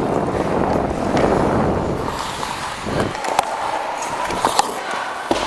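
Ice hockey skating heard on a player-worn camera: a dense rush of wind on the microphone and skates on ice for about three seconds, then quieter, with several sharp clacks of sticks and puck on the ice.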